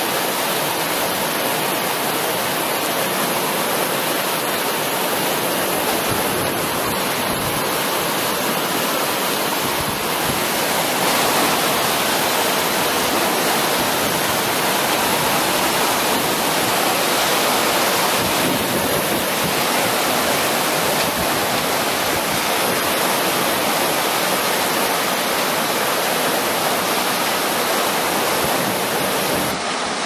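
Torrential downpour with squall wind gusting through the trees: a steady, dense rushing noise that swells a little about ten seconds in.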